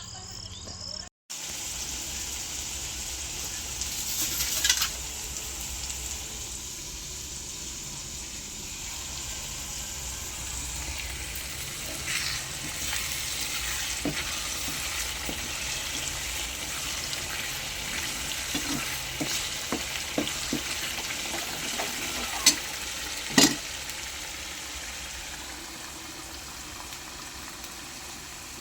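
Food frying in a pan: a steady hiss with a few sharp utensil clicks scattered through it, the loudest near the end.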